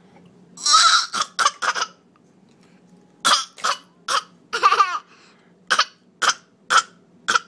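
A toddler coughing in short, separate coughs. First comes a bout of four in the first two seconds. After a pause of about a second, a string of about eight more follows, roughly half a second apart.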